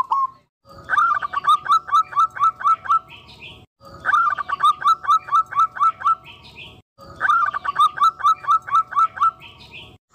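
Rapid bird-like chirping: a run of about a dozen quick falling chirps lasting about three seconds, repeated identically three times with short gaps, as a looped sound effect.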